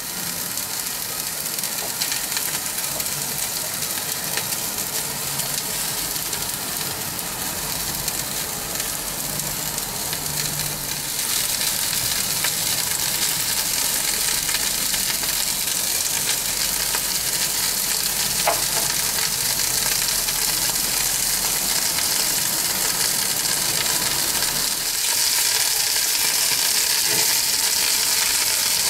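Dry-aged rump steak sizzling on the hot grate of a Severin electric steak grill, a steady fat-spitting hiss. The sizzle grows louder about eleven seconds in and again near the end.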